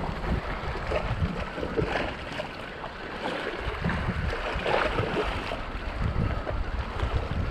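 Sea water sloshing and splashing unevenly against rocky shore, with wind buffeting the microphone in gusts.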